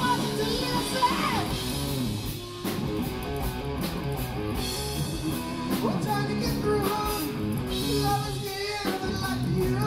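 Live rock band playing loudly: electric guitars with bending notes over bass and a drum kit, with a singer's voice.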